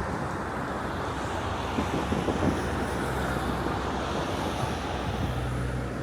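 Steady outdoor rumble of city traffic with a low engine hum, and faint scattered pops and crackles of distant fireworks.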